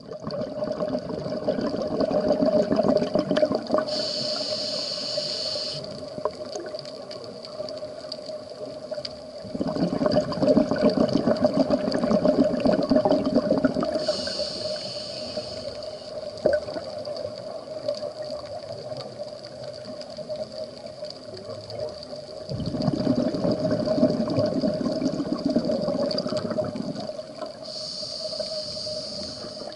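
Scuba diver's breathing through a regulator, heard underwater, at about one breath every twelve seconds. Each breath is a long crackling burst of exhaled bubbles followed by a shorter high hiss of inhalation, three times in all, over a steady faint hum.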